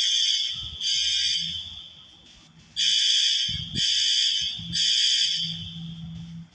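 Building fire alarm sounding its evacuation signal: loud, high-pitched beeps in groups of three, with a pause of about a second between groups, repeating. This is the temporal-three pattern.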